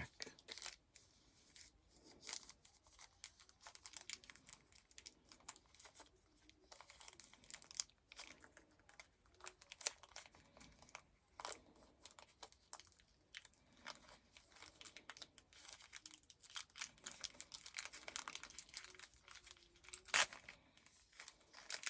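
Trading card pack wrapper being torn open and crinkled by hand: faint, irregular crackles and tearing, with a few louder crackles.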